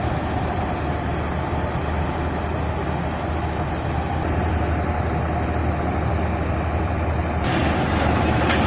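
Combine harvester running steadily: a low engine hum under the busy noise of the machine at work, growing brighter and hissier about seven and a half seconds in.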